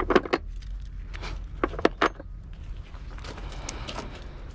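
Hand tools clinking and knocking on metal while parts are pulled from a car: a quick run of sharp clanks in the first two seconds, then lighter scattered clicks.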